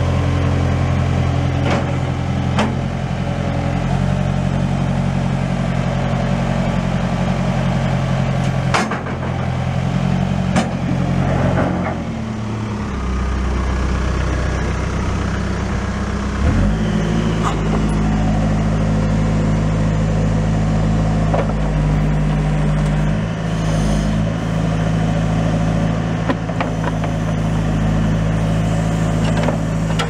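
2008 Case 580 Super M Series 3 backhoe's Fiat four-cylinder turbo diesel running while the loader and backhoe arms are worked. Its engine speed drops about twelve seconds in and rises again a few seconds later. A few sharp knocks come through.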